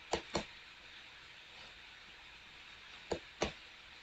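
Computer mouse clicking: a pair of short clicks at the start and another pair about three seconds in, over a faint room hiss.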